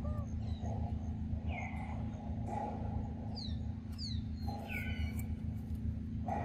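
Outdoor forest ambience: a steady low rumble under a handful of short, high chirps that fall in pitch, several close together in the middle.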